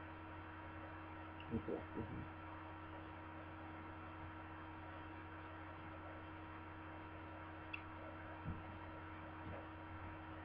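Steady electrical mains hum over quiet room tone. A few soft thumps come about two seconds in, and a faint clink of a metal fork against the ceramic bowl near eight seconds in, followed by another soft thump.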